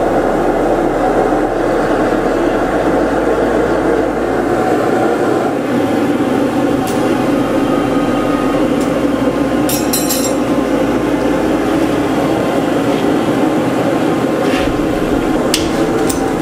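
Gas forge burner running with a loud, steady rush, with a few short metallic clicks near the end.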